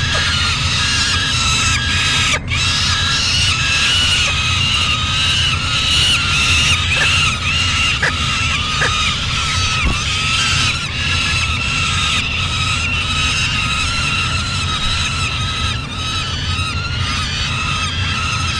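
Young peregrine falcons calling without a break, many harsh, repeated squealing cries overlapping. A steady low hum runs underneath.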